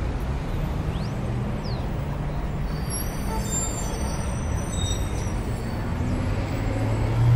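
Heavy truck engine running steadily, a low rumble that swells near the end.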